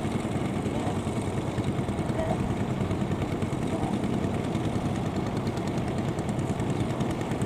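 A farm machine's engine running steadily at an even speed, mixed with water rushing across a breached paddy bank.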